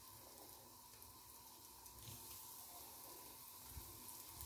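Faint, steady sizzling of shallow oil frying breaded cucumber strips in a nonstick pan, with a soft tap as another strip is laid in.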